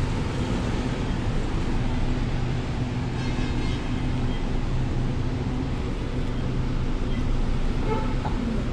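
Steady low hum and rumble of a crowded LRT-1 light-rail car standing at a station, its onboard equipment running. A brief faint high ringing tone sounds about three seconds in.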